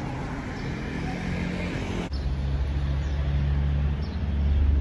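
Street traffic: a motor vehicle's engine gives a steady low rumble that grows louder over the second half.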